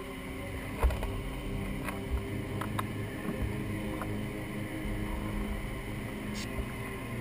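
The Exosuit's electric thrusters running, a steady machine hum of several tones heard from inside the hard diving suit, with a few sharp clicks, the loudest about a second in. The right thruster is playing up: it later turns out to be an overheated thruster motor.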